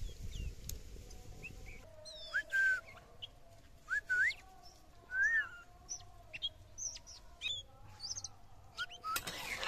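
Oriental magpie-robin singing: a string of clear, varied whistled notes, some rising and some falling, with quicker high chirps in between.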